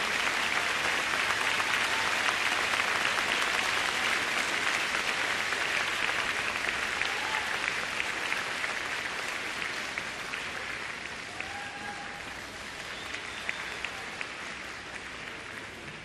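Arena crowd applauding a figure skater at the end of her program, the clapping loudest at first and slowly dying away.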